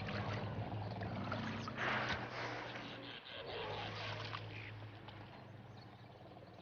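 A motor running with a steady low hum, under a rushing noise that is loudest about two seconds in and fades toward the end.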